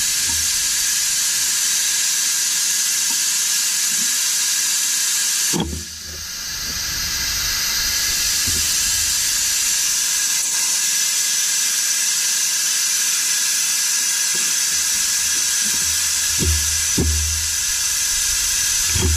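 Vacuum brake bleeder hissing steadily as it draws brake fluid and air out of a new brake caliper through a hose on the bleeder valve. The hiss cuts out about six seconds in and builds back up. A few soft knocks come near the end.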